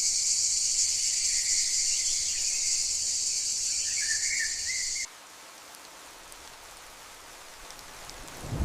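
A dense, steady high-pitched insect drone, like a chorus of crickets or cicadas, with a few brief chirps, cutting off abruptly about five seconds in; after a faint hiss, a rising rush begins right at the end.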